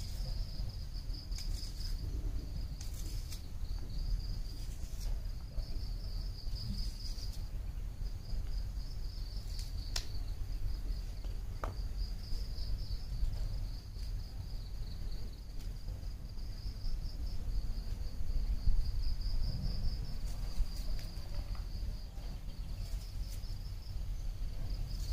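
Insects chirring in a continuous, slightly pulsing high chorus over a low steady rumble, with a single sharp click about ten seconds in.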